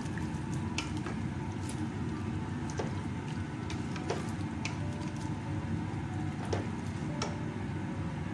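Squid and tomato broth boiling in a stainless steel pot on a gas stove: a steady low rumble with scattered pops of bursting bubbles.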